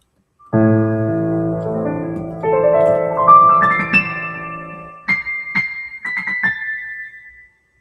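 Piano playing loudly: a low chord struck about half a second in, then notes climbing step by step, and a few high notes near the end. The clack of the keys is picked up by the microphone along with those last notes.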